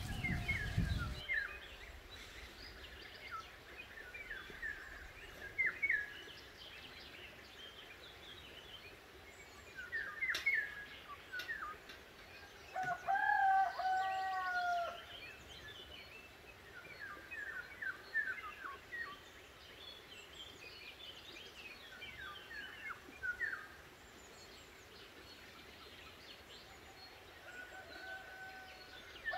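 Small birds chirping on and off, with a rooster crowing once about halfway through.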